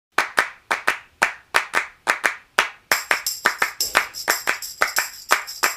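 Rhythmic hand claps, about four a second, opening a music track; about three seconds in, a high jingling joins the claps.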